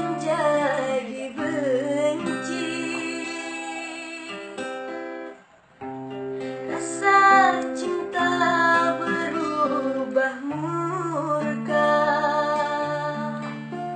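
A woman singing a sliding, ornamented melody to plucked acoustic guitar chords, with a short break in the music about five and a half seconds in.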